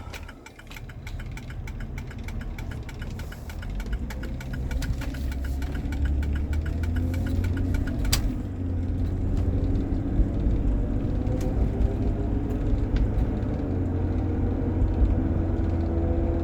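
2004 Jeep Grand Cherokee's drivetrain under way and accelerating, heard from inside the cabin: a loud low drone, with several tones that climb slowly as it speeds up, and rapid clicking through about the first half. It carries the noise the owner is chasing, which comes only on the gas and which he thinks sounds like the drive shaft catching on something. It began soon after a front differential fluid change.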